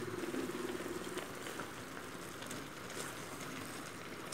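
Chicken pieces in spice paste sizzling and bubbling in a non-stick wok, a steady hiss with faint crackles.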